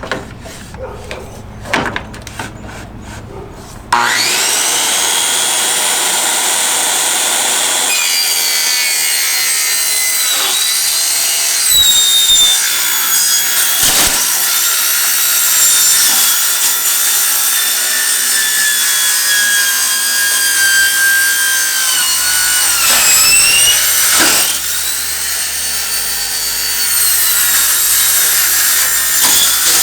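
Power saw cutting sheet-metal roofing panels: a loud, high-pitched metallic screech that starts about four seconds in and runs on, its whine dipping and recovering several times as the blade bites into the metal.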